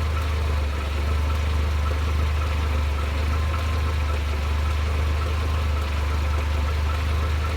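Mercedes-Benz SLK 230 (R170) 2.3-litre supercharged four-cylinder idling hot, a steady low hum with a faint, regular ticking. This is the strange noise that the owner hears only when the engine is hot, with fuel consumption, acceleration and smoke all normal.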